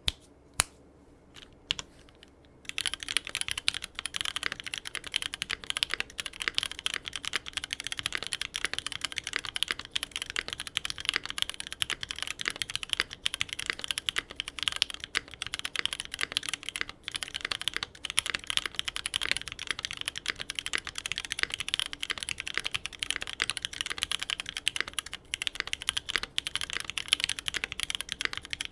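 Typing on an MKC75 custom mechanical keyboard with lubed Cherry MX Black Hyperglide linear switches, an aluminium plate and GMK keycaps. A few separate keystrokes come first, then steady fast typing from about three seconds in.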